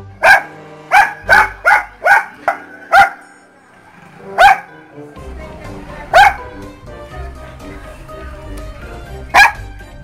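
Poodle barking: a quick run of about seven sharp barks in the first three seconds, then three more spaced a second or more apart. Background music plays throughout.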